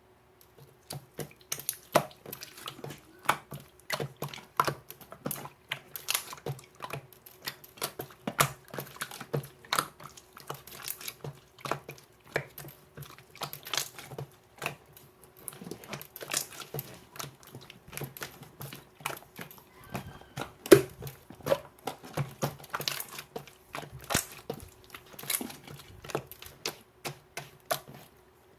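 Toy slime being squished and worked by hand, giving a dense, irregular run of sticky clicks and small pops.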